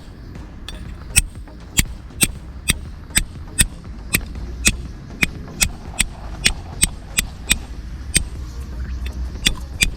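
Steel striker hitting a flint, a sharp click about twice a second, throwing sparks to light tinder.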